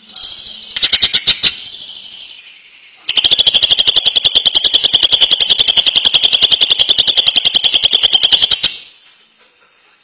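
Cucak ijo (green leafbird) singing: a short burst of rapid notes about a second in, then from about three seconds a long, fast, even rattle of repeated high notes lasting about five and a half seconds, the cucak ijo's 'ngentrok' rattle.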